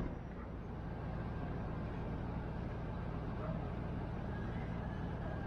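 Steady low rumble, with one sharp click right at the start.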